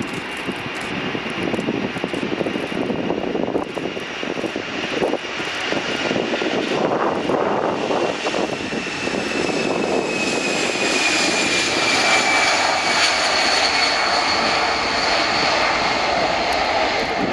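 A Boeing 747SP's four jet engines at takeoff power as the jet rolls down the runway and rotates. The noise builds up steadily, and from about halfway in a high whine slides slowly down in pitch as the aircraft passes.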